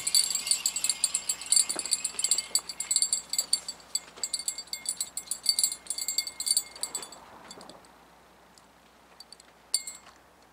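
Fishing reel clicking rapidly with a high metallic ringing as line is worked on a hooked catfish. It stops about seven seconds in, with one short burst of clicks near the end.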